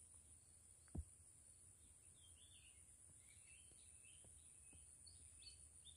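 Near silence, with a faint outdoor ambience: a steady high insect drone, faint bird chirps from about two seconds in, and a single soft thump about a second in.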